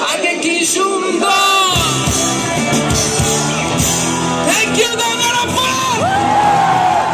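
A live band playing: singing over guitars, with bass and drums coming in about two seconds in.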